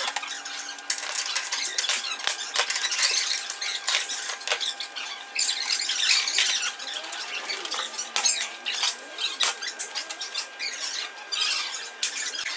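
Spanners clinking and squeaking on a CNC router spindle's collet nut as it is loosened and taken off to change the bit: a string of irregular sharp metallic clicks and knocks.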